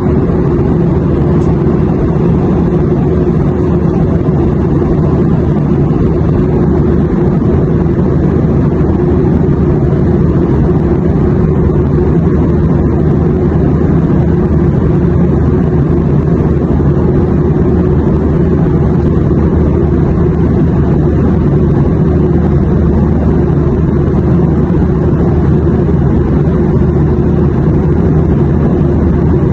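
Steady, unchanging drone of an airliner cabin in flight: a low-heavy rumble with a faint steady hum in it.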